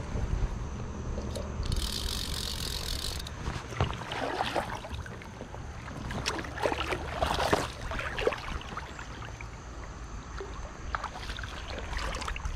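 Water splashing and sloshing as a hooked rainbow trout is played and brought to the net, with irregular splashes between about four and eight seconds in, over a steady low rumble.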